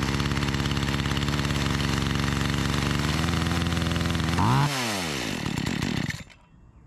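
Makita EA3200S two-stroke chainsaw engine running just after starting, its first run since the carburetor diaphragm was replaced, a setting the mechanic thinks was running too rich. Its revs rise and fall back once about four and a half seconds in, and the engine stops about six seconds in.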